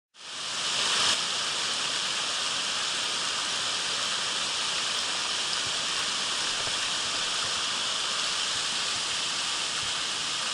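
Mountain stream water rushing over rocks: a steady loud roar of flowing water that fades in at the start and then holds even.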